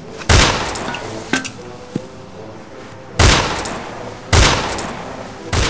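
Rifle shots laid in as sound effects: four sharp cracks with short decaying tails, the first near the start and three more in the second half, with two lighter clicks between the first and second.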